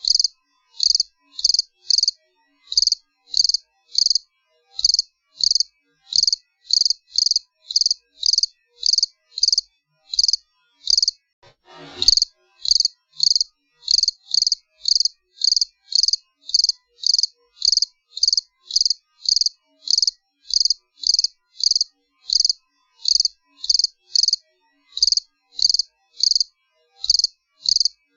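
A cricket chirping loudly and steadily, short high chirps at about two to three a second in runs with brief gaps. There is a single sharp click about twelve seconds in.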